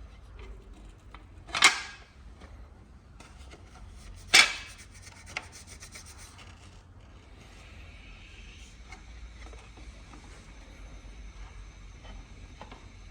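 Two short scraping rubs about three seconds apart, from parts or tools being handled, then a faint steady hiss that sets in about seven seconds in.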